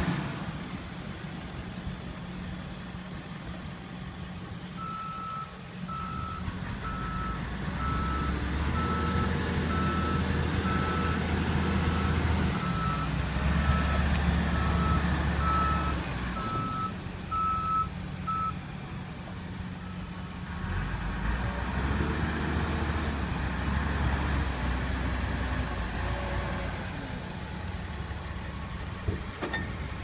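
Cat 924G wheel loader's diesel engine running and revving up and down as the machine drives and manoeuvres. Its back-up alarm beeps about once a second for the first half, then stops.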